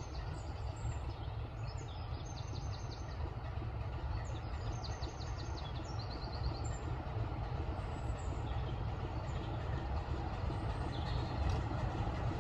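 A heritage railway train running, heard as a steady low rumble that grows slightly louder near the end. High-pitched chirps come and go through the first half.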